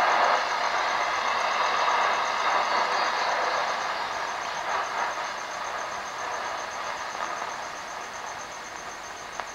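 Static and hiss from a Sonatec PRI-037U portable radio, a rebadged Pearl River set, as it is tuned between AM stations at night. The hiss gradually gets quieter, and a faint, steady high-pitched whistle pulses through it.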